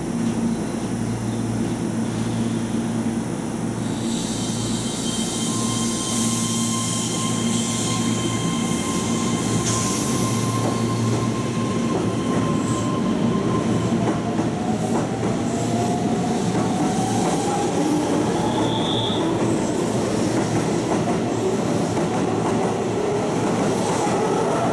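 Keihan 13000 series electric train pulling out of the station. A steady hum comes first while it stands, then wheel and rail noise builds as it gets under way. Past the middle its motor whine rises slowly in pitch as it gathers speed.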